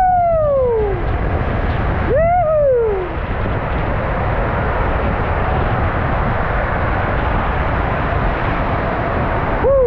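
Steady rushing of water and sliding as a rider whirls around the bowl of a Whitewater West SuperBowl water slide, heard close on the rider's own camera. Three short whoops, each falling in pitch, come at the start, about two seconds in, and at the very end.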